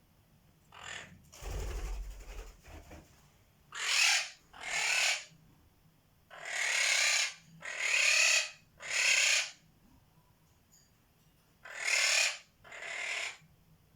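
Quaker parrot (monk parakeet) giving a series of raspy screeches with no clear pitch. Seven loud ones come in groups of two, three and two, after fainter calls in the first three seconds.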